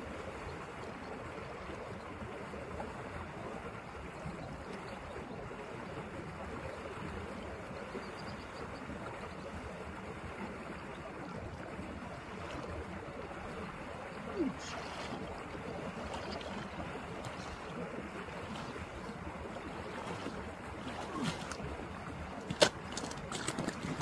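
Steady rushing of a shallow mountain stream running over rocks and around ice. A few sharp knocks and clicks come near the end.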